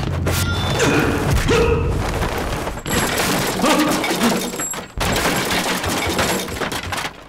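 Action-film fight sound effects: a dense run of crashes, thuds and clattering impacts with booming hits. The sound changes abruptly about three seconds in and again about five seconds in.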